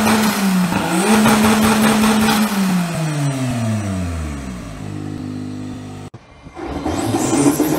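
Modified turbo-diesel longtail-boat engine running on a test stand at high revs, dipping once and climbing again, then the revs fall away smoothly and it settles at a lower steady speed. About six seconds in the sound cuts out abruptly, and an engine at higher revs comes back near the end.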